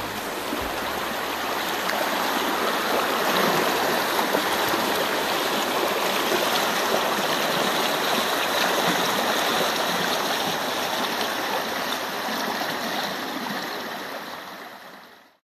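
Rushing water of a fast-flowing river, a steady rush that fades out near the end.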